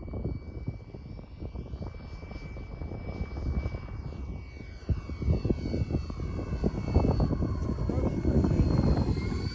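X-Fly J-65 RC model jet whining as it flies past, its pitch shifting and rising near the end. Heavy wind buffets the microphone throughout.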